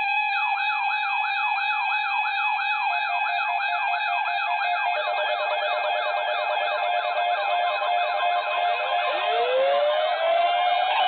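Several electronic sirens sounding together, starting abruptly: a fast yelp sweeping up and down about three times a second over steady held tones. Near the end another siren winds up, rising in pitch.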